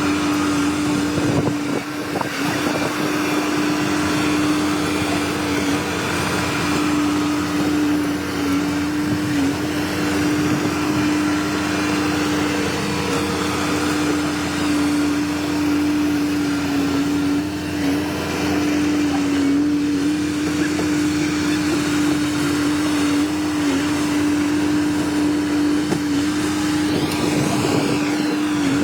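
Bulldozer's diesel engine running hard and steady, a constant drone whose pitch dips briefly now and then.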